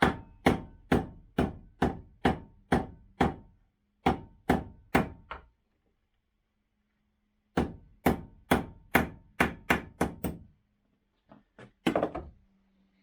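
A big hammer striking a small homemade tool to flatten the ferrule on a wire link. The strikes come in steady runs about two a second, stop twice for a second or two, and end with a few lighter taps.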